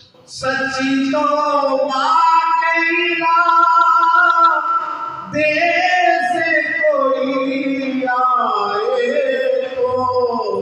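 A singer performing an Urdu naat, holding long, ornamented vowel notes that bend and glide in pitch without clear words.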